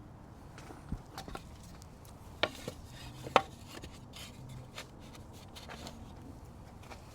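Bonsai hand tools snipping and clicking on a juniper: a handful of short, sharp clicks and snaps spread over the first five seconds, the loudest about three and a half seconds in.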